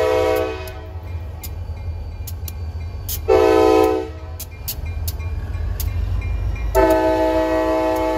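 Wheeling & Lake Erie diesel locomotive's air horn sounding its chord. A long blast ends about half a second in, a short blast follows about three seconds in, and a long blast starts near seven seconds, the close of a grade-crossing warning. Beneath it runs the low steady rumble of the diesel engine.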